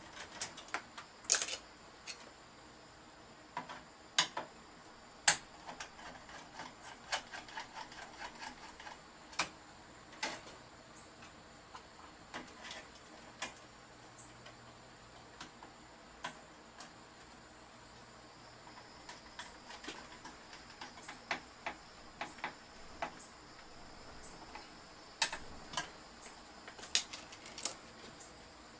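Scattered, irregular sharp clicks and taps of hand tools and metal parts as wires are cut, stripped and fastened and a breaker is fitted into a residential electrical service panel. The clicks are busiest in the first ten seconds and again near the end, with a sparser stretch in the middle.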